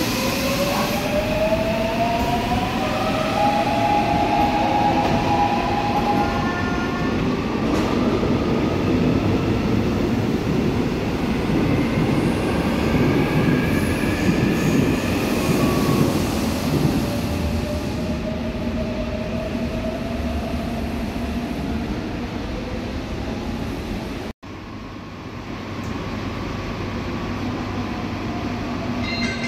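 A Seoul Subway Line 4 electric train pulling out of the platform: the traction motors' whine climbs in several tones as it accelerates, over wheel-on-rail rumble that swells as the cars pass and fades away in the second half. The sound drops out for an instant near the end.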